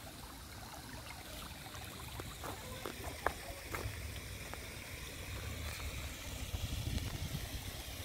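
Shallow stream trickling over stones, with a low rumble underneath that swells toward the end and a few faint clicks.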